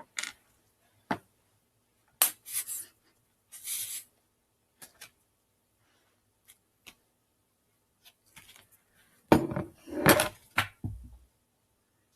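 Paper and craft supplies being handled on a table while a paper tongue is glued in place: scattered light taps and clicks, a couple of short rustles, and a louder burst of handling about nine seconds in.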